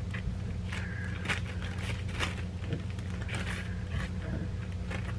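Zip-top plastic bag crinkling and rustling as handfuls of cut ham are gathered off a wooden chopping board and put into it, in short rustles about once a second, over a steady low hum.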